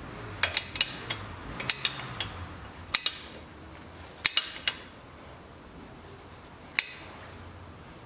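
Steel wrench and socket clinking and knocking against metal: about a dozen sharp, ringing clinks in small irregular clusters through the first five seconds, then one more near the end.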